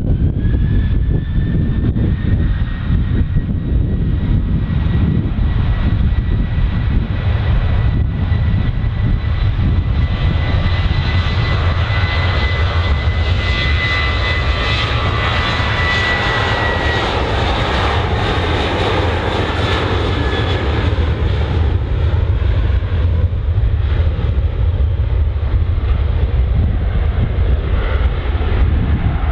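Jet airliner's engines as it passes: a high whine rises in pitch at the start and then holds, over a heavy rumble, while the roar swells to its loudest around the middle and fades away in the last third.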